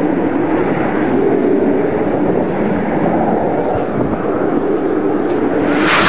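Steady rumble of Tornado jet engines, swelling sharply louder near the end as a jet closes in.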